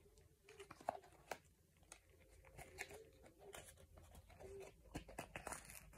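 Faint crinkling, rustling and scattered small clicks from a small cardboard box being handled, over near silence.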